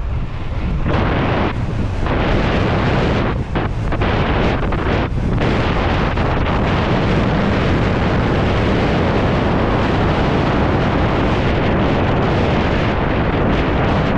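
Wind buffeting a camera microphone during a mountain bike run: a loud, steady rush with a few brief lulls in the first five seconds.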